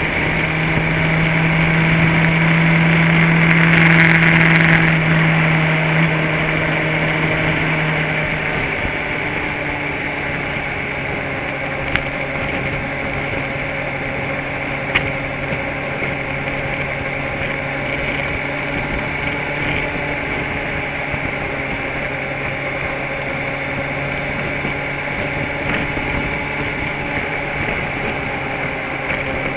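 A vehicle engine running at a steady speed, a little louder and higher for the first eight seconds or so before easing back slightly. Two short faint clicks come around the middle.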